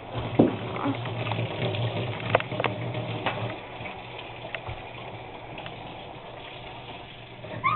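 Water running from a tap, louder for the first three seconds or so and then softer, with a few knocks from the camera being handled.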